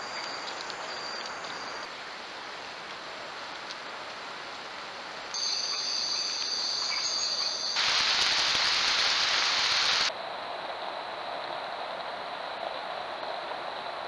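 Tropical forest ambience from trail cameras: steady high-pitched insect calls over a background hiss. The mix changes abruptly several times, and a louder even hiss lasts about two seconds in the middle.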